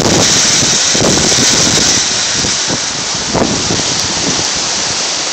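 Heavy thunderstorm rain pouring down in a steady loud hiss, with gusting wind rumbling on the phone's microphone.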